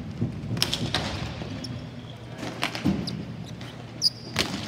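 Ball hockey play in a rink: several sharp knocks and thuds from sticks, ball and boards, with a brief high squeak about four seconds in.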